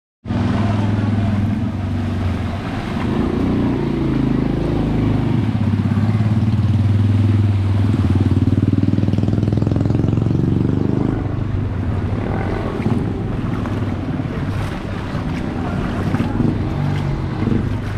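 Engine of a motorcycle tricycle running close by as it drives through floodwater, with water splashing off its wheels. The engine fades about eleven seconds in, leaving the sound of water sloshing.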